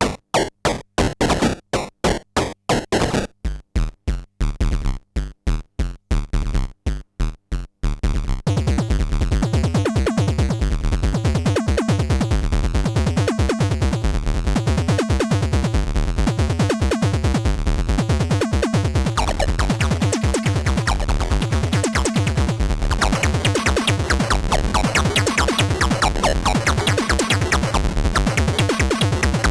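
Soulsby miniAtmegatron 8-bit synthesizer playing a fast sequence of short, clipped notes with silences between them. About eight seconds in, the notes run together into a continuous rapid pattern with a strong low bass.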